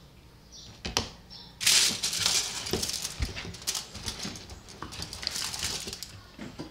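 Aluminium foil crinkling and rustling as it is handled, a loud crackly rustle full of small clicks starting about a second and a half in, after a single sharp click.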